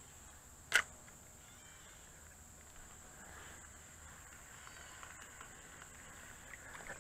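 Faint, steady, high-pitched drone of insects, with one sharp click a little under a second in.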